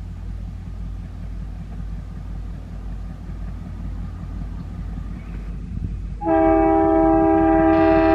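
ALCO WDM-3A diesel locomotive approaching at speed, its engine a steady low rumble; about six seconds in its horn sounds loudly with several tones at once and holds.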